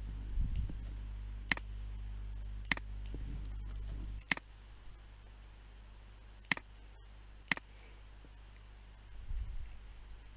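Five separate sharp clicks of a computer mouse and keyboard, unevenly spaced, over a low hum that stops about four seconds in.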